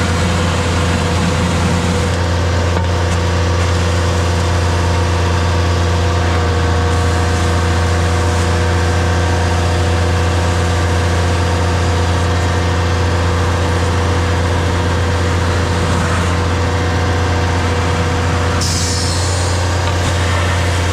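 DAF combination gully tanker's engine and vacuum pump running steadily while sucking out a gully, a constant low drone with a brief hiss near the end.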